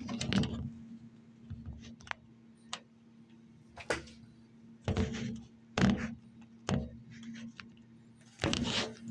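Irregular plastic clicks and knocks from handling and prying an earpad off the earcup of a PlayStation 5 3D audio headset with a plastic pry tool, over a faint steady low hum.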